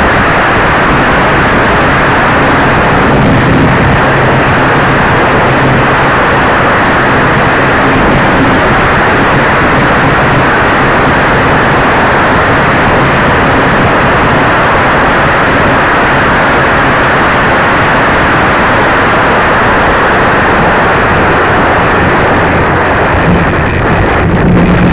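Loud, steady rush of airflow and propeller noise on the microphone of a small onboard camera riding a ParkZone T-28 RC plane in flight, with a faint low hum at times.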